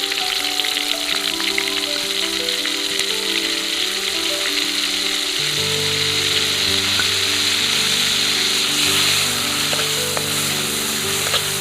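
Food frying in hot oil in a pan: a steady loud sizzle with small crackles and pops throughout. Background piano music plays underneath.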